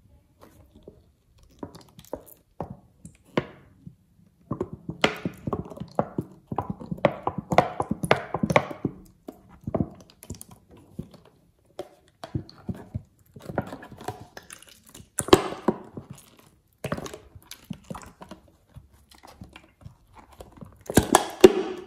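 Slime being squeezed from a plastic squeeze bottle and pressed and stretched by hand in a bowl of other slimes: irregular sticky squelches, pops and clicks, with the loudest cluster near the end.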